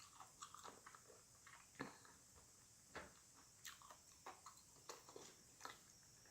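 Faint chewing of a person eating, heard as soft, irregular mouth clicks and smacks, slightly stronger about two and three seconds in.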